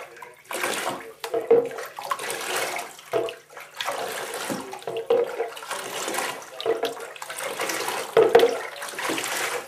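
Water splashing and pouring in a bathtub as a cat is bathed by hand, with water poured over her from a plastic jug; the splashes come unevenly, one after another.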